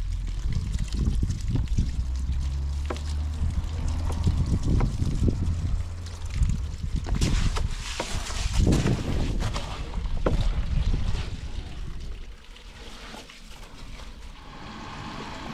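Water from a garden hose running and splashing into a plastic tub of rice while a hand swishes and rubs the wet grains, washing the rice. It gets quieter about twelve seconds in.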